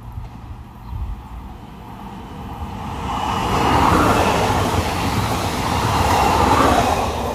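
SNCF TER regional train passing at speed: a rushing of wheels on rail that builds from about two seconds in, is loudest while the cars go by, and begins to fall away at the very end.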